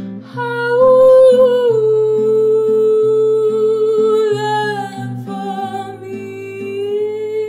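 A woman's voice holding one long sung note over acoustic guitar playing. The note comes in about half a second in, slides slowly lower through the middle, and lifts again near the end.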